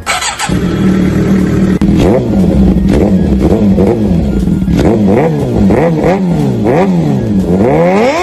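Suzuki GSX-R600 inline-four engine, freshly rebuilt, running through an M4 slip-on exhaust: it idles steadily at first, then is revved in repeated throttle blips that rise and fall, coming quicker and higher toward the end.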